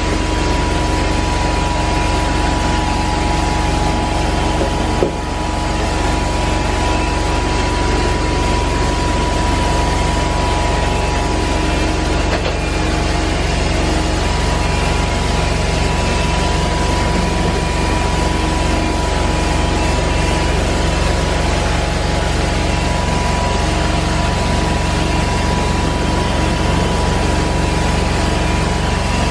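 Rotovac 360i rotary carpet-cleaning wand at work on carpet, its spray-and-vacuum extraction making a loud, steady machine noise with a constant whine, dipping briefly about five seconds in.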